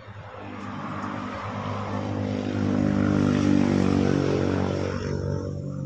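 A motor vehicle's engine passing by: its steady hum grows louder for about three seconds, then fades about five seconds in.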